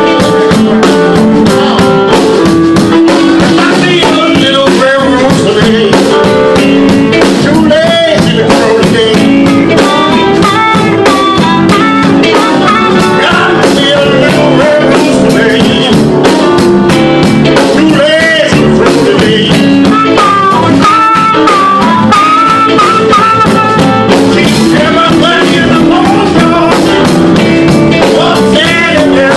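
Live blues band playing a blues number on electric guitar, piano and drum kit, with a wavering lead line over the band.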